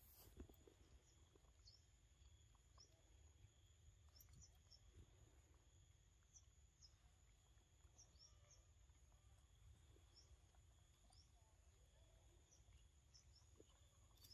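Near silence: faint outdoor ambience with a steady high insect whine and short, faint bird chirps every second or so.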